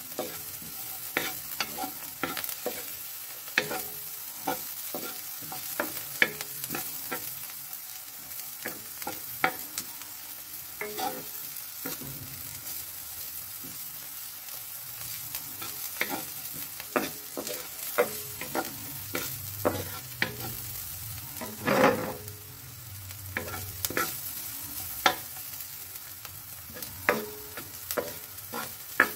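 Wooden spatula knocking and scraping against a wok as chopped onion and garlic are stirred, over a steady sizzle of the frying. The knocks come irregularly, about one or two a second, with the loudest about 22 seconds in.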